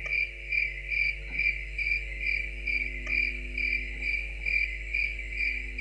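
Cricket chirping, a steady high chirp repeating evenly about two to three times a second. It is the stock 'crickets' sound effect for an awkward silence.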